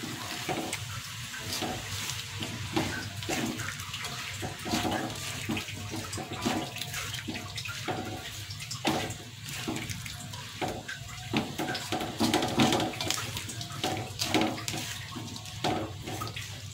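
Shredded cabbage and egg stir-frying in a wok: a steady sizzle with frequent irregular scraping strokes as a silicone spatula stirs and tosses the food against the pan.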